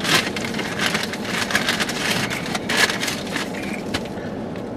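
Paper and foil food packaging rustling and crinkling in irregular crackles, busiest just after the start and again near three seconds in.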